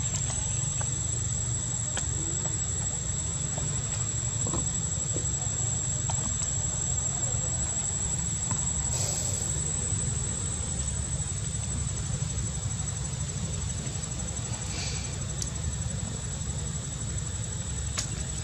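Insects droning with one steady high-pitched tone over a low rumble, with a brief hiss about nine seconds in.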